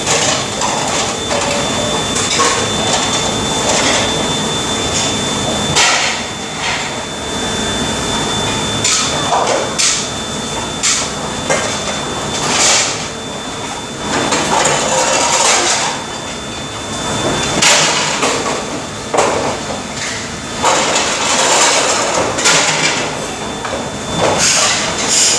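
Dishes, pots and plastic dish racks clattering and knocking against stainless-steel counters and sinks as they are handled, in sharp irregular knocks over steady background noise with a thin high whine.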